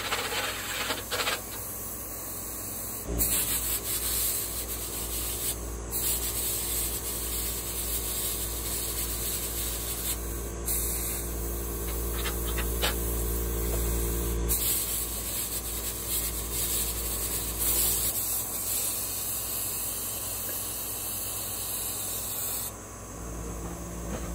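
Handheld plasma cutter hissing steadily as it cuts a door opening through the steel wall of a grill chamber, with a low hum underneath that shifts a few times.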